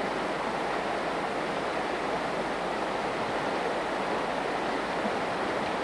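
Steady rushing of a fast river current flowing past rocks.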